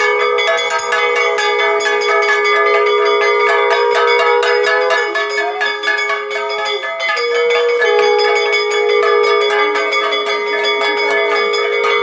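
Puja bells rung rapidly and continuously, over long held tones that break off and change pitch briefly about five and seven seconds in.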